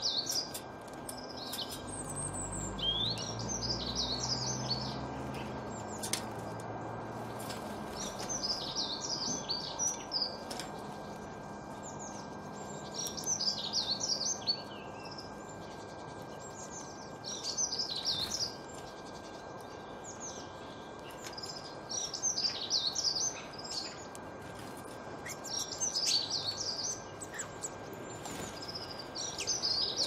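A songbird singing short phrases of quick, high notes, each about a second long and repeated every three to four seconds.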